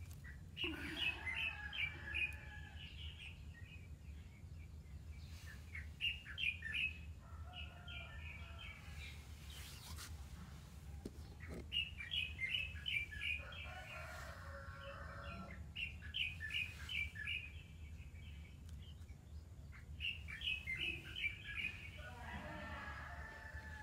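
Small birds chirping in short bursts of rapid, high notes that recur every few seconds, over a steady low hum.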